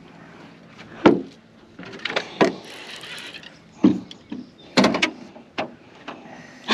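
A series of sharp knocks and clunks, about five spread over a few seconds, with a short rustling hiss between them.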